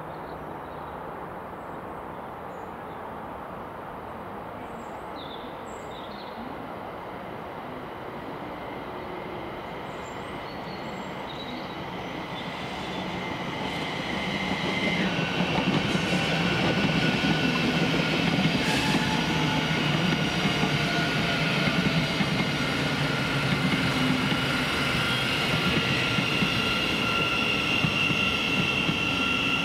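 A train approaching and passing on the line: a steady rumble grows much louder about halfway through, with high whines, one of which drops in pitch as the train goes by, then stays loud.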